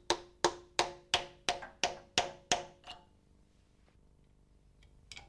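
A hammer tapping a camshaft oil seal replacer tool, driving a camshaft oil seal home into a Rover 200/400 diesel cylinder head. About nine evenly spaced taps, roughly three a second, each with a short ringing note; they grow softer and stop about three seconds in, followed by a few small clicks near the end.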